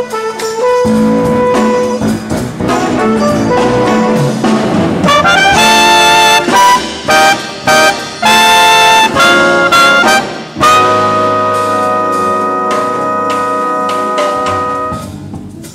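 Jazz big band playing, its brass section led by the lead trumpet: lighter ensemble playing at first, then a run of short, loud punched brass chords from about five seconds in, and from about ten and a half seconds a long held chord that fades away near the end.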